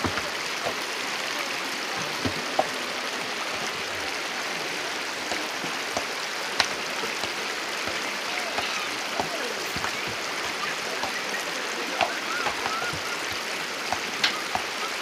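Steady rushing noise like flowing water, with occasional sharp clacks of stones knocking together as they are handled and set into wire gabion baskets.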